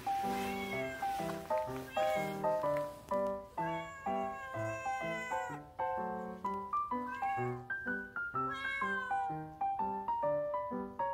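Several meows from stray cats over background music made of clear stepped notes.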